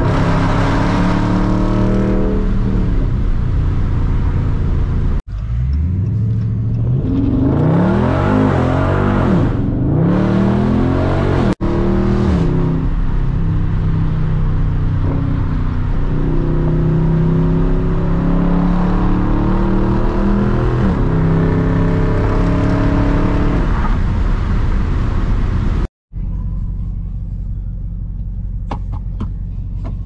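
Dodge Charger Daytona 392's 6.4-litre HEMI V8 running: steady highway cruising, with a hard pull where the revs climb and fall through the gears about a quarter of the way in. After a sudden cut near the end it settles into a lower, steady idle with the car stopped.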